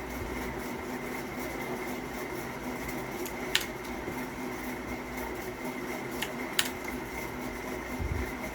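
Steady fan-like hum of a small room, with a thin high tone over it, broken by three sharp single clicks in the middle part, two of them close together.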